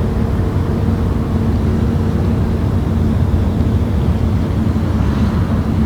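An engine running steadily: a loud low rumble with an even, unchanging hum.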